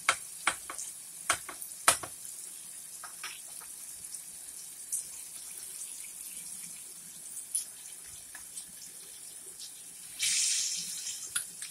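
Catfish pieces frying in a pot of hot oil: a steady high sizzle with scattered pops and crackles, and a louder hiss for about a second near the end.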